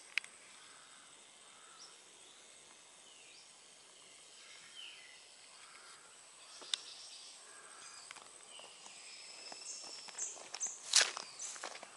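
Rural outdoor ambience: a steady high insect drone with scattered short bird chirps. From about ten seconds in, close footsteps come in as a run of irregular, louder steps.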